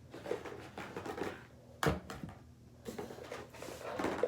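Fidget toys being handled and set down: irregular rustling and tapping, with a sharp knock about two seconds in and another near the end.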